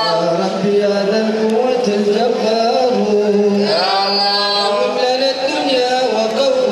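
A man chanting religious verses solo in long held notes that slide slowly from one pitch to the next.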